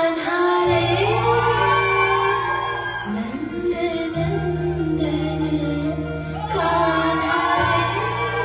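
Recorded Hindustani classical tarana: a female voice singing long, gliding notes over a steady low accompaniment whose held notes change about a second in, at about four seconds and near the end.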